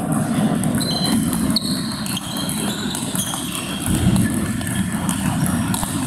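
Table tennis balls clicking off rubber bats and table tops in fast, uneven strings from rallies on several tables at once.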